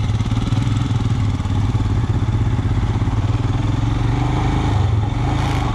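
Royal Enfield Himalayan motorcycle's single-cylinder engine running steadily as the bike moves off and rides on.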